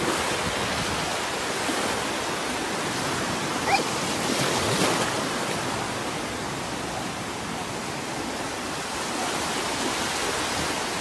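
Gulf of Mexico surf washing in over shallow water at the shoreline: a steady hiss of small breaking waves, with one brief high chirp about four seconds in.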